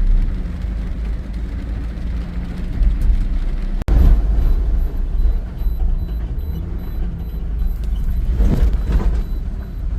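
Road traffic on wet, waterlogged streets in heavy rain: a steady low rumble of vehicles, with one passing with a swish near the end. The sound drops out for an instant about four seconds in.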